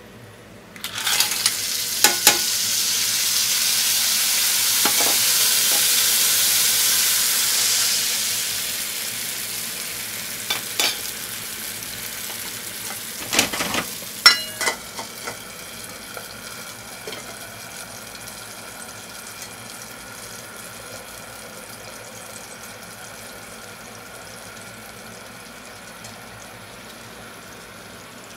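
Asari clams and liquid hitting hot garlic oil in a stainless steel frying pan: a loud sizzle bursts out about a second in and slowly dies down to a quieter steady simmer. A few sharp clinks of shells and metal against the pan come through the sizzle.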